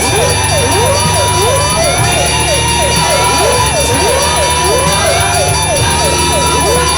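Dense electronic sound-effect mix: many overlapping siren-like tones glide up and down, layered over a drum beat looped at 2741 beats a minute, about 45 a second, so fast that it blurs into a low buzz. Steady high tones sit above it.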